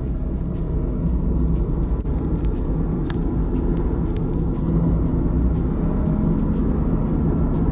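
Steady road and engine rumble inside the cabin of a moving car.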